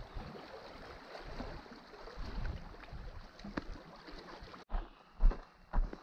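Small waves washing against a rocky shore, with scattered faint clicks. Near the end the sound cuts abruptly to footsteps on loose shoreline rocks, about two steps a second.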